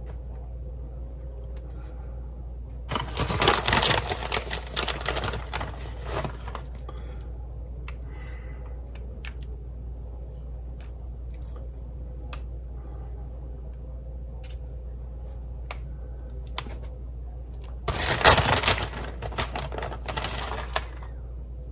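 Two bouts of crinkling and rustling, about three seconds in and near the end, with scattered light clicks and taps between them, while shredded mozzarella is spread over the top of a lasagna.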